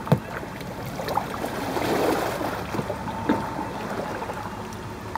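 Kayak paddling on a river: paddle strokes splashing and water rushing along the hull, swelling about two seconds in, with a few light knocks.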